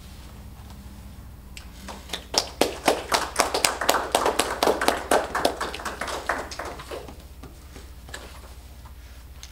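Small audience applauding for about five seconds, starting about two seconds in and tapering off, at the end of a poem.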